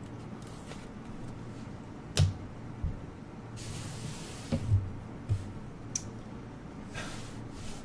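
Trading cards being handled: several light taps and knocks against the table, with a brief sliding rustle about halfway through, over a faint low hum.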